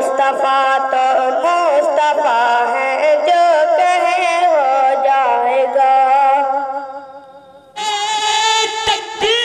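A high solo voice singing a naat in long, ornamented phrases with a wavering pitch and no beat. The singing fades out about seven seconds in, and a louder held vocal sound cuts in abruptly near the end.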